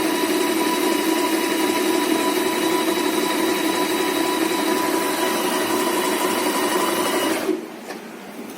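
Usha Janome Stitch Magic electric sewing machine running steadily, sewing a triple straight stretch stitch. It stops suddenly about seven and a half seconds in.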